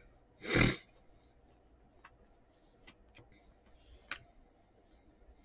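Trading cards being handled and sorted by hand. A short, loud burst of rustling noise comes about half a second in, then scattered soft clicks and taps of the cards against each other, the sharpest one about four seconds in.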